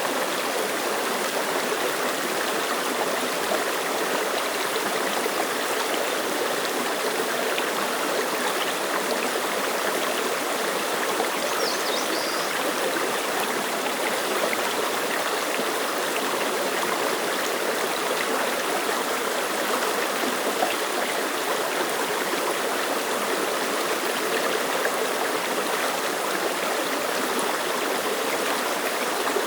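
Mountain stream flowing over rocks, a steady, even rush of water.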